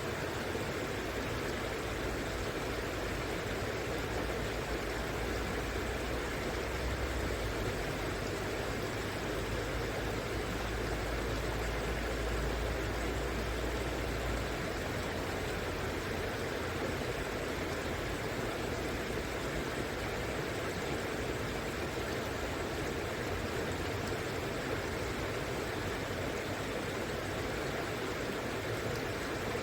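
River water rushing steadily. A low rumble sits underneath and fades about halfway through.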